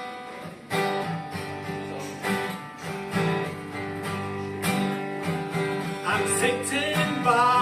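Acoustic guitar strumming chords in a country style, opening the song before the vocal. About six seconds in, a wavering higher melodic line joins.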